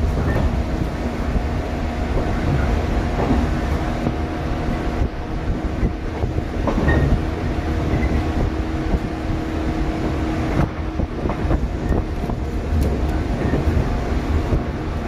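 Shinano Railway 115-series electric train running at speed, heard from inside a motor car with the window open: a steady rumble of wheels on rail with a steady motor hum, and a few sharp clicks as the wheels cross rail joints.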